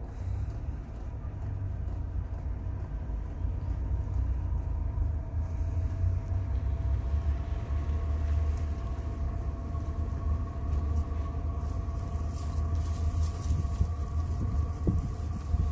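Portable 5 kW diesel parking heater running steadily: a low combustion rumble with the blower motor's whine slowly rising in pitch and getting louder as the heater ramps up after its smoky start-up.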